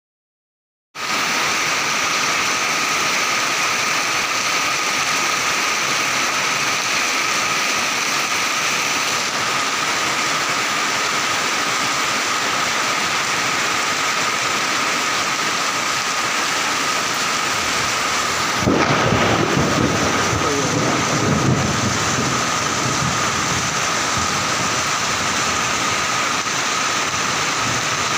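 Heavy rain pouring down steadily, starting about a second in. About two-thirds of the way through, a deeper, louder rumble rises over the rain for a few seconds.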